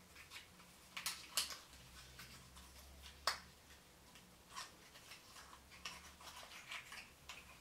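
Small cosmetics package, a cardboard box and a little pigment jar, being handled and opened by hand: scattered light clicks and taps of fingernails and packaging, the sharpest about three seconds in.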